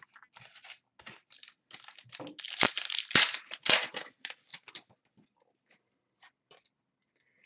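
Wrapper of a Totally Certified basketball card pack crinkling and tearing open as it is handled, a quick run of crackles that is loudest between about two and four seconds in, then only a few faint crinkles.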